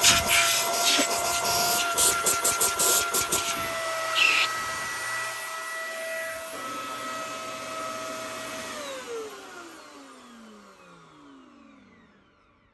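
Hoover WindTunnel Air upright vacuum running with a steady motor whine, not the greatest sounding, with a rapid clatter of knocks over the first few seconds. About nine seconds in it is switched off: the whine falls in pitch as the motor spins down and fades away. The owner suspects dust in the fan is making it sound off.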